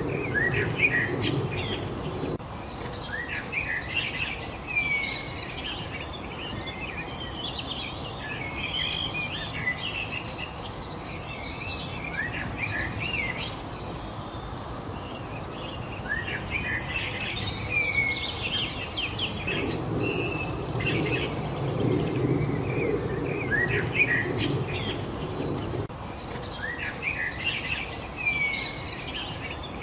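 A chorus of songbirds chirping and singing together, many short quick notes, most sliding downward, over a steady background hiss. A low rumble sits underneath at the start and again for several seconds in the second half.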